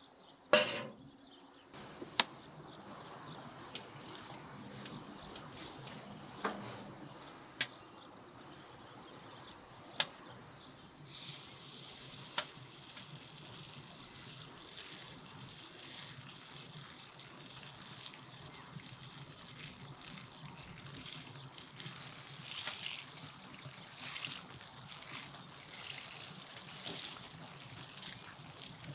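A frying pan set down on a metal stove top with a sharp clank about half a second in, then a few clicks of a ladle. From about the middle, minced liver batter fries in hot oil with a steady, crackling sizzle.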